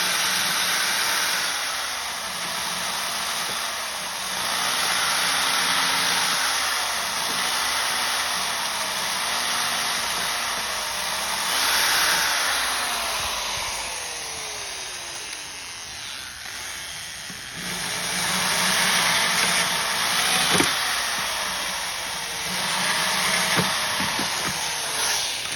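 Electric drill running in reverse with a left-handed drill bit, boring into a broken-off bolt, its motor speed rising and falling again and again as the trigger is worked. It slows almost to a stop about two-thirds of the way through, then runs up again, with a few sharp clicks near the end.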